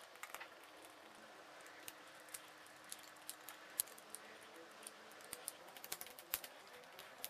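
Faint, irregular small clicks and taps of a precision screwdriver and small screws against 3D-printed plastic parts as sections are screwed together. The clicks come more often in the second half.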